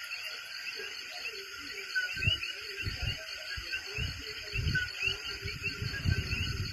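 Night chorus of coquí frogs repeating short two-note rising chirps over a steady high insect drone, with low rumbles through the middle.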